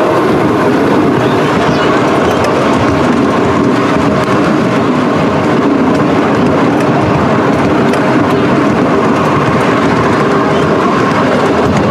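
Ride-on miniature railway train running along its track: a loud, steady rumble and rattle of the cars' wheels on the rails, with faint clicks.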